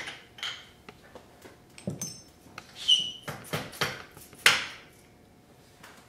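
Metal cam caps and bolts from a Honda B-series cylinder head clinking and knocking as they are worked off and set down, a few clinks ringing briefly. The loudest knock comes about four and a half seconds in.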